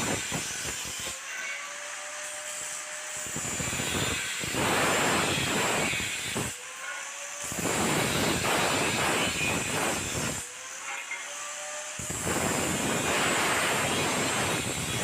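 Electric arc welding crackling and sizzling in runs of a few seconds, with short pauses between the runs.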